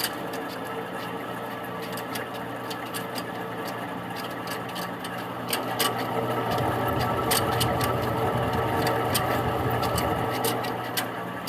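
Mini-split air conditioner running with an abnormal noise: a steady hum with irregular sharp clicks and ticks over it, growing louder and rougher from about six to ten seconds in.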